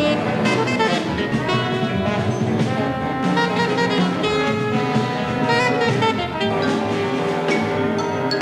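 Jazz ensemble music, with several instruments holding overlapping notes together.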